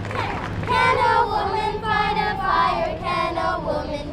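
A group of girls singing a melody together.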